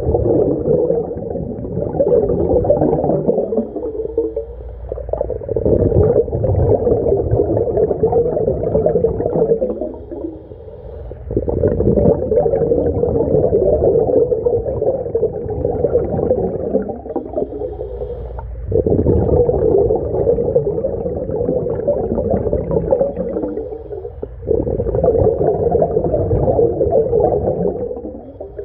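A diver breathing through a scuba regulator, heard underwater: long stretches of exhaled bubbles gurgling out of the mouthpiece, each broken by a short quieter inhale, about one breath every six to seven seconds. The sound is muffled and low, with no sharp or high sounds.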